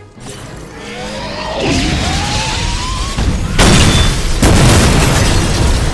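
Explosion sound effect: a rising whine over building noise, then a loud boom about three and a half seconds in that rumbles on.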